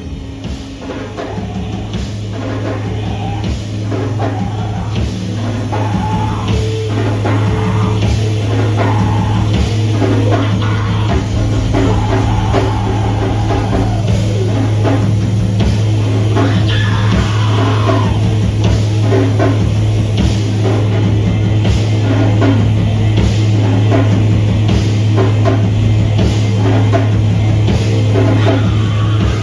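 Loud, heavy rock music from a band: a constant low bass drone under busy drum hits, building in volume over the first several seconds.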